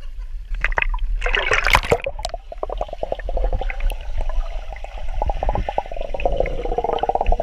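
Water splashing, then a steady rapid gurgling and bubbling close to the microphone.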